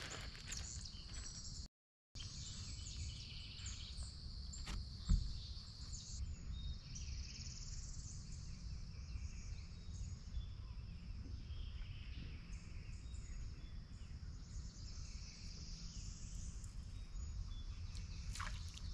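Swamp ambience: insects droning steadily in a high band that swells and fades, over a low rumble. There is a brief dropout about two seconds in and a single sharp knock about five seconds in.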